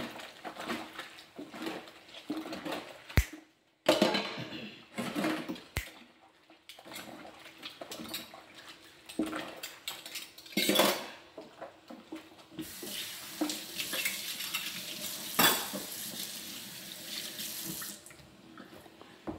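Dishes being hand-washed in a stainless steel kitchen sink: scattered clatter of dishes and utensils in the dishwater. From the middle to near the end the faucet runs steadily.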